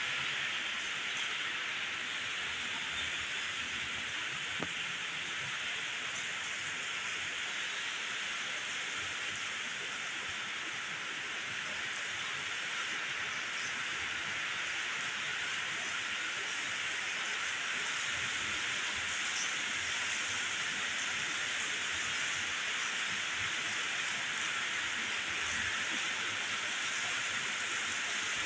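Steady rain falling, an even noise that holds unchanged throughout.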